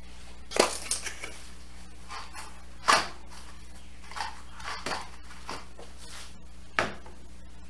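Short knocks and rattles of a box of screws and a cordless drill being handled and set down on a plywood trailer floor: sharp knocks about half a second in and about three seconds in, lighter taps between, and one more knock near the end. The drill is not run.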